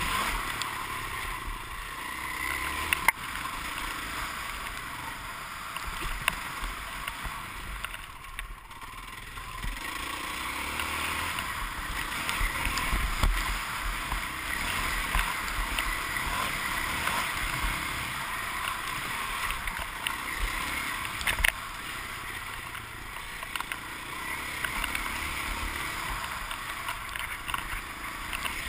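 Dirt bike engine running under throttle on a motocross track, heard through wind rush over a helmet-mounted camera, with occasional sharp knocks. The engine eases off briefly about eight seconds in, then picks up again.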